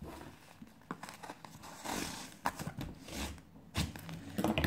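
Cardboard vinyl-record mailer being opened by hand: irregular tearing, scraping and rustling of cardboard and paper, with small clicks between.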